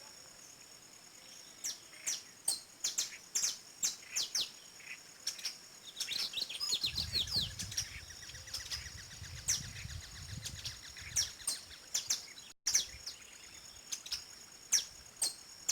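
Birds calling with many short, sharp chirps, each sliding down in pitch, some in quick runs, over a steady high-pitched tone. A low rumble rises under the calls for a few seconds mid-way, and the sound cuts out for an instant after about twelve and a half seconds.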